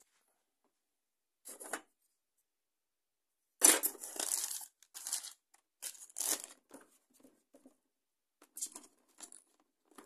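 Packaging being handled: polystyrene tray and plastic bag rustling and scraping in short, irregular bursts, loudest about four seconds in.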